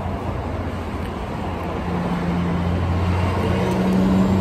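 Road traffic: a motor vehicle's engine running with a low steady hum that grows louder toward the end.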